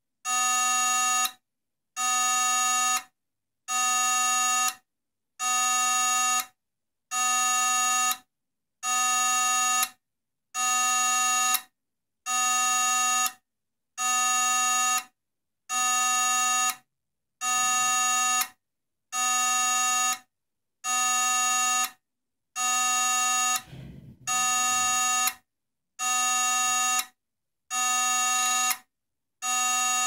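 Failed hard disk drive with a dead logic board, its platters not spinning: the drive gives a pitched electrical buzz for about a second and a quarter, falls silent briefly and buzzes again, over and over about every second and a half to two seconds, as it keeps failing to spin up.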